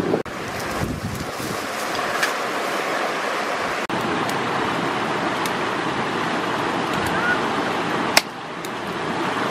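Steady rush of a rocky stream, broken by a few sharp clicks, the loudest near the end.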